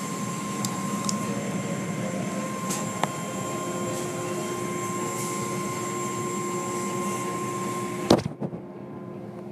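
Automatic car wash heard from inside the car: water spraying over the windshield and glass while the wash machinery runs with a steady whine, cloth strips sweeping across the car. About eight seconds in there is a sharp knock and the hiss of the spray drops away.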